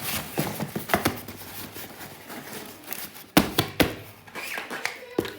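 Handling sounds with a few sharp knocks and taps, the two loudest close together a little past the middle and another near the end.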